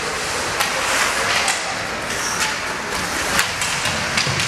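Ice hockey play heard from the stands: skates scraping the ice in a steady hiss, broken by several sharp clacks of sticks and puck.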